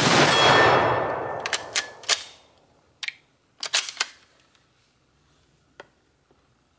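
A single 7.7 mm rifle shot from a Type 99 Arisaka, its report rolling away over about a second and a half. This is followed by two groups of sharp metallic clicks as the bolt is worked to eject the case and chamber the next round, with one last click near the end.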